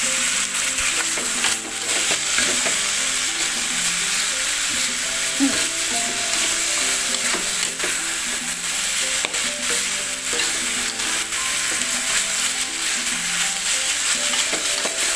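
Bitter melon and dried shrimp sizzling in a hot wok while being stir-fried, the metal spatula scraping and knocking against the pan now and then.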